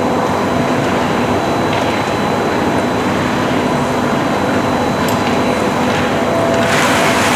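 Steady hum of an indoor ski hall's ventilation and cooling plant, with a few faint steady tones in it. Near the end, a louder hiss of ski edges scraping the snow as a slalom skier carves past close by.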